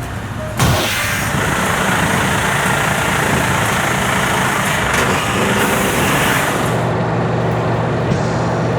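Heavy truck's air system letting out a long, loud hiss of compressed air that starts suddenly and stops after about six seconds, then the diesel engine idling steadily.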